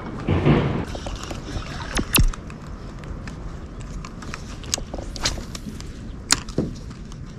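Steady rushing outdoor noise of water and wind, with a handful of sharp clicks and knocks; the loudest, about two seconds in, carries a low thump.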